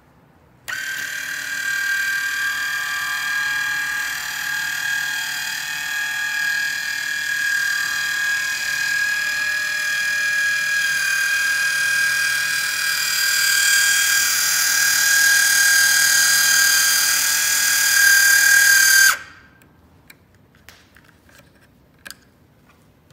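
Small DC gear motor of a vending-machine belt conveyor running: a steady, high-pitched whine over a low hum, starting about a second in and cutting off suddenly near the end. A few faint clicks and a light tap follow.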